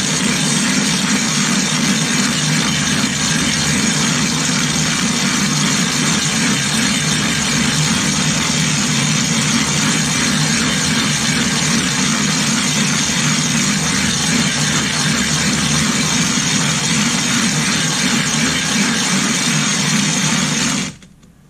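Silicon carbide sharpening stone being slid back and forth on a glass plate over wet, coarse loose grit (about 40 to 50 grit): a loud, continuous gritty grinding of lapping the stone flat. It stops abruptly about a second before the end.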